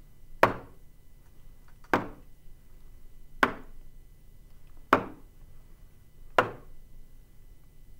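A pointer tapping a whiteboard, one sharp tap about every second and a half, five times, marking a sentence word by word.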